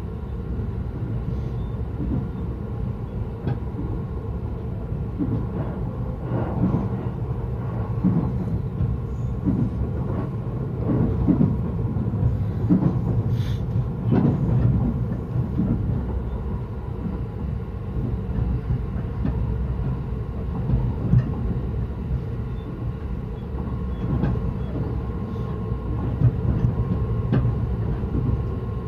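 Yokosuka Line commuter train running between stations, heard from inside the car: a steady low rumble with irregular wheel clicks and knocks over the track, and a faint steady whine.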